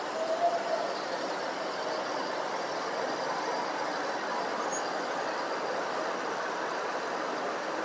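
Steady, indistinct background hubbub of a busy hall, with a short faint tone about half a second in.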